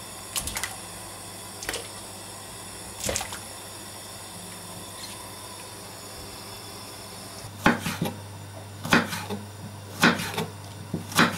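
Pig trotters knocking and splashing as they are lowered into a cast-iron pot of hot water, with a few small knocks early on. Then a chef's knife chops leek and ginger on a wooden cutting board, a sharp knock about once a second through the second half. A steady low hum runs underneath.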